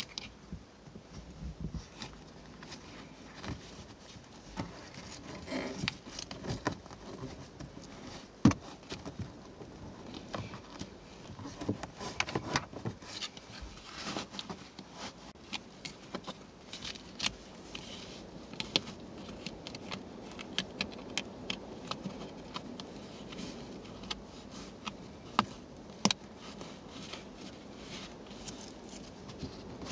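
Hands working a car seat's fabric cover and its plastic edge strip: irregular rustling and scraping with small clicks and taps, and one sharper knock about eight and a half seconds in.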